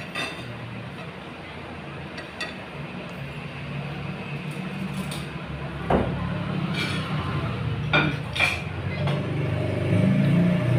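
Eating utensils clinking and tapping against a dish about six times, the sharpest knocks around the middle, over a steady low hum of background noise.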